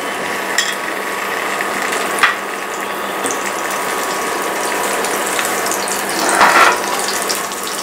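Oil sizzling steadily around stuffed banana pieces frying in a shallow pan, with a faint click about two seconds in and a short louder noise about six and a half seconds in.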